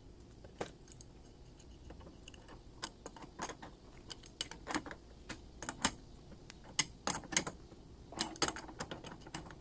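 Adjustable wrench clicking against a brass pipe fitting as it is set on, turned and reset to tighten the fitting into a gas timer valve held in a vise: a string of irregular light metal clicks, more frequent and louder in the second half.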